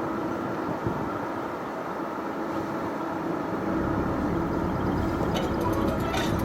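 Steady low rumble of wind and a running vehicle, with a faint steady hum underneath and a few short clicks near the end.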